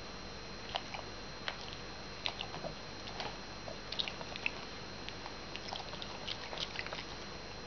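Faint, irregular small clicks of a boerboel puppy's mouth and nose as it sniffs and licks at a kitten.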